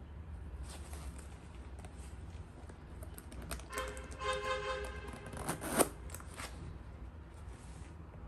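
Metal side zipper of a canvas high-top sneaker being worked: a buzzing rasp of the teeth starting about four seconds in and lasting just over a second, then a sharper, louder rasp near six seconds. Soft handling rustles of the canvas come before and after.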